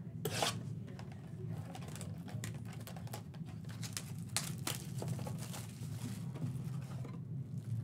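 Plastic shrink-wrap being cut, crinkled and torn off a cardboard box of trading cards, with scattered sharp crackles and a few taps as the cardboard box is handled and its flap opened.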